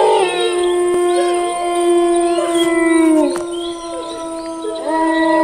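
Long drawn-out howls from several voices overlapping, held steady for a few seconds, falling away about three seconds in and rising again near the end.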